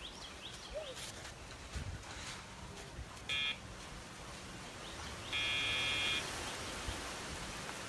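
Electronic beeps from a dog-training e-collar's sound box, used as a cue to the dog. A short beep comes about three seconds in, and a longer one of nearly a second comes about five seconds in.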